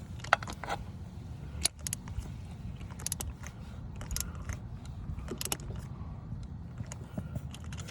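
Ratchet and spark plug socket clicking, with metal tools clinking in scattered short bursts while a spark plug is tightened down, over a steady low rumble.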